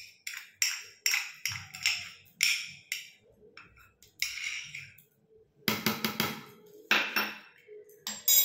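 A metal spoon tapping and scraping against a small cup, knocking the last of its contents out. Quick light taps come in a run at first, then a scrape, then a cluster of sharper knocks and a couple of single taps near the end.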